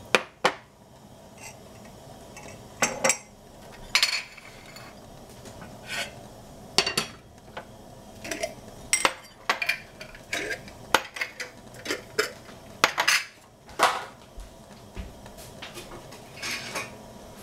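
Glass jars knocking and clinking as they are handled and set down on the stove, an irregular series of sharp clinks.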